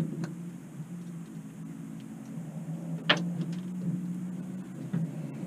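Boat motor humming steadily, with a few light clicks and one sharper knock about three seconds in.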